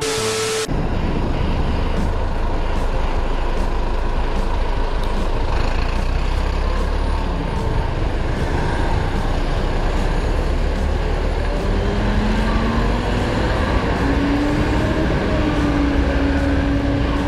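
A brief glitchy transition tone at the start, then steady traffic noise heard from a riding motorcycle: a Yamaha YBR 125's single-cylinder engine under wind and road noise, with a city bus running close ahead. Near the end an engine note rises twice as it speeds up.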